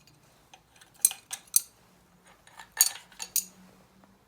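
Sharp metallic clinks and clatter of hand tools and small metal parts being handled during cylinder head removal on an air-cooled Volkswagen 1600 engine. There are about half a dozen separate clinks in irregular clusters.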